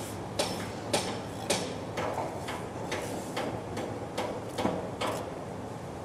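Construction work inside a building: sharp knocks, about two a second, ringing in an echoing room over a steady background hum. The knocks stop about five seconds in.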